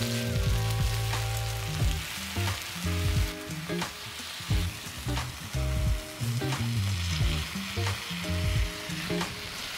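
Pork belly, minari and kimchi sizzling on a cast-iron pot-lid griddle, with repeated clicks of metal tongs against the pan as the food is turned. Soft background music runs underneath.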